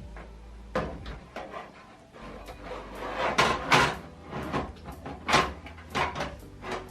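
Irregular knocks, clicks and rattles of a computer power supply and its cables being handled and fitted into a PC case, loudest about halfway through.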